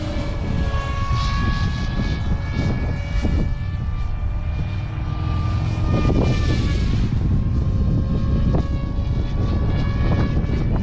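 SAB Mini Comet electric RC helicopter flying fast. Its motor and rotor make a steady high whine whose pitch wavers slightly, with louder swishing swells as it passes, over a low wind rumble.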